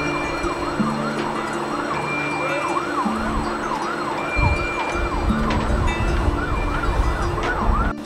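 Emergency vehicle siren in a fast rising-and-falling yelp, about two wails a second, over background music. A low rumble joins about halfway, and everything cuts off abruptly just before the end.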